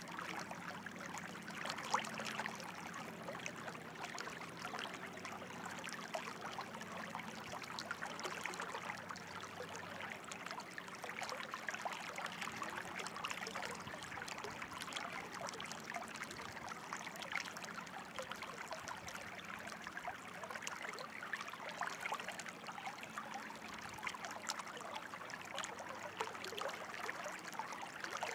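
Running water of a small stream, trickling steadily.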